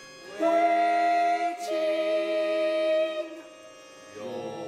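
A vocal ensemble sings a long wordless chord in a stage musical. It enters about half a second in, holds for about three seconds, and dies away. A softer, lower chord comes in near the end.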